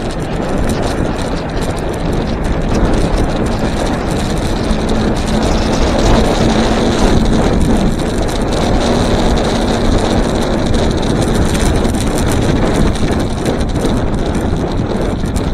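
Steady wind rush over the microphone and tyre rumble on asphalt while riding a YUME D4+ electric scooter at cruising speed, with a faint steady high tone.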